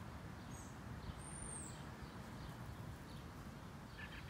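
Quiet outdoor background: a low steady rumble with faint bird chirps now and then, and a brief high whistle a little over a second in.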